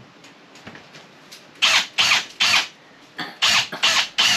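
Power drill run in short trigger bursts, about seven in quick succession, starting about a second and a half in; the motor's pitch rises as it spins up on each pull.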